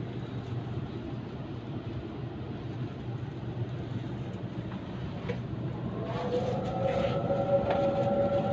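Steady rumble of a Sydney suburban electric train running, heard from inside the carriage. About six seconds in, a whine of several steady tones comes in and the sound grows louder.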